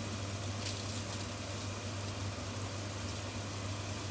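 Chuck eye steak sizzling in oil in a hot frying pan: a steady hiss with a single sharp pop of spattering fat under a second in, over a low steady hum.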